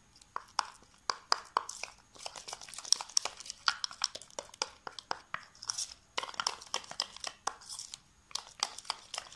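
Spoon stirring a thick paste of gram flour, yogurt and turmeric in a glass bowl: quick, irregular clicks and scrapes of the spoon against the bowl, with the soft squish of the paste.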